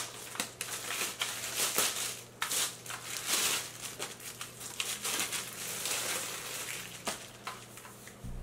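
Plastic wrapping and a cardboard box crinkling and rustling in irregular handling noises as an electric wine opener is unpacked, with one sharp click right at the start.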